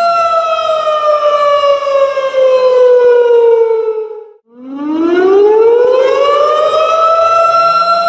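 Tornado warning siren wailing: a held tone that slowly falls in pitch, drops out for a moment about four and a half seconds in, then winds back up to the same steady wail.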